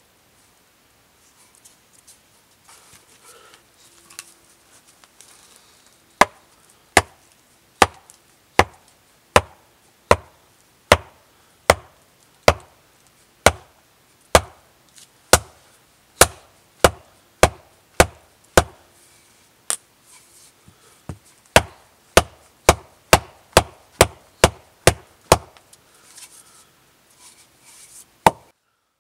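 Wooden maul with a bark-covered log head striking the top of a wooden stake, driving it into the ground: a run of about thirty sharp wooden knocks, a little over one a second at first, then quickening to about two a second before stopping, with one last knock near the end.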